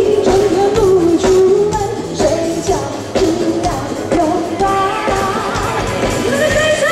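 A pop song with a singer's melody over a steady drum beat.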